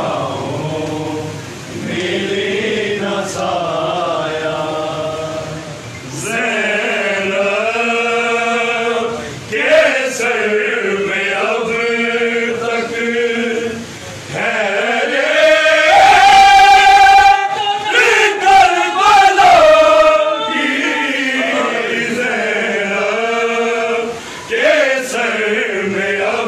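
A group of men chanting a noha, a Shia Muharram mourning lament, in sung phrases. It grows loudest in the middle with a long, high held note.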